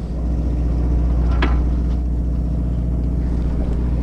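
Steady low drone of the fishing boat's engine running, with a single sharp click about a second and a half in.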